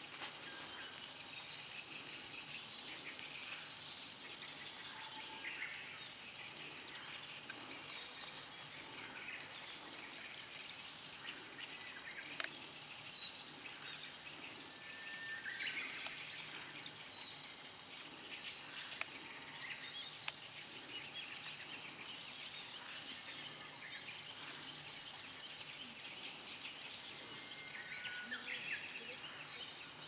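Outdoor ambience with scattered short chirps and calls of small birds, and a few sharp clicks around the middle.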